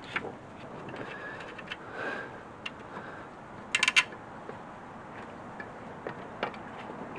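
Metal hand tools and bolts clinking and knocking while an alternator is unbolted from its bracket, with a quick run of ringing metallic clinks about four seconds in.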